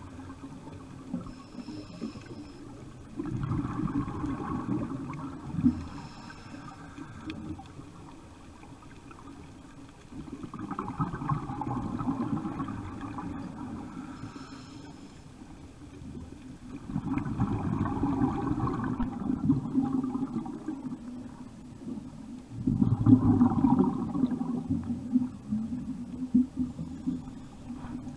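Scuba diver breathing through a regulator, heard underwater: four bubbling, rumbling exhalations about every six seconds, with faint hisses of inhalation between some of them.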